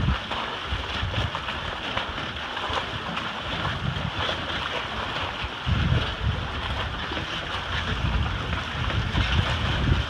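Storm wind buffeting the microphone, with low gusts near the start and about six seconds in, over a steady rush of choppy water sloshing around a flooded boat at its dock.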